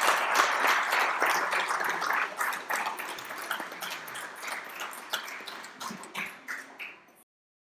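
Audience applauding, the clapping growing quieter and sparser until it cuts off abruptly near the end.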